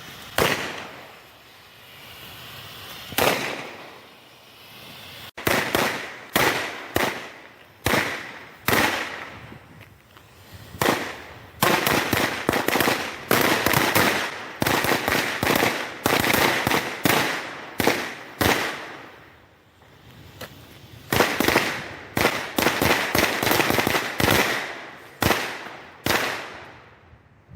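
Fireworks and firecrackers going off in rapid, uneven volleys of sharp bangs that echo. A few scattered bangs come first, then dense barrages of several bangs a second run from about five seconds in almost to the end.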